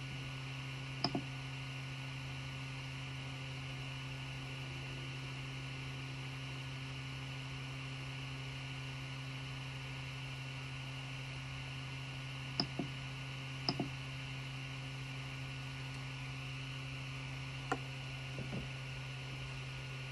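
Steady fan hum from a running Creality Ender 3 Pro 3D printer, with a few short clicks of its LCD control knob: a pair about a second in, two more pairs around twelve to fourteen seconds in, and a single click near the end.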